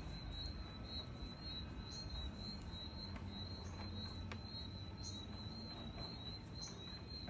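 Insect chirping steadily: a high-pitched pulse repeating about three times a second, with a few brief higher chirps now and then.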